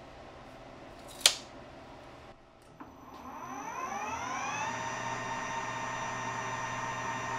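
A sharp snap about a second in. Then a metal lathe's spindle starts up, its whine rising in pitch for about two seconds and then running steady at speed.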